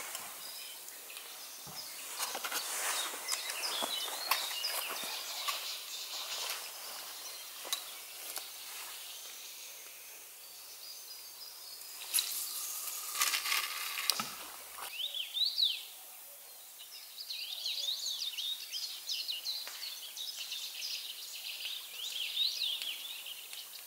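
Small birds chirping over a steady outdoor background. About halfway through there is a brief burst of rustling and clicks as a fishing rod is cast.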